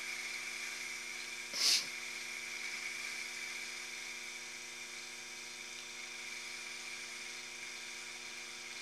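Taig micro lathe's motor and spindle running at a steady speed with a high whine while a light cut is taken on a small taper pin. A brief hiss about two seconds in.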